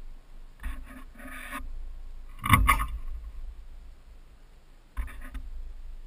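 A few short scrapes and rubs from a GoPro camera strapped to a ceiling fan, over a low steady rumble. The loudest comes about halfway through, with weaker ones about a second in and near the end.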